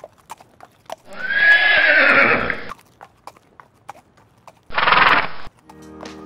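A horse whinnying once, loud and about a second and a half long, over scattered sharp hoof clicks, followed about five seconds in by a shorter, breathy horse sound. Music starts near the end.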